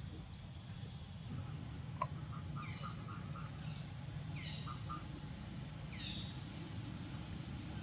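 Forest birds calling: a high call sweeping downward, repeated three times about a second and a half apart, and a quick run of short even notes. A single sharp click about two seconds in, over a steady low rumble.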